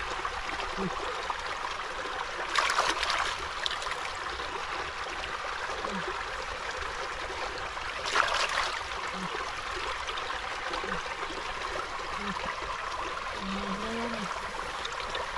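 Steady trickling of shallow water, with two brief splashes, about three seconds and eight seconds in, as hands dip and wash in the water.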